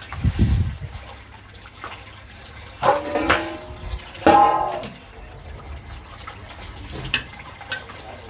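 Tap water running into a basin while dishes are washed by hand, with scrubbing on a large metal plate in the first second. About three and four seconds in, the metal plate gives two short ringing scrapes as it is turned, and a few light clinks of utensils follow near the end.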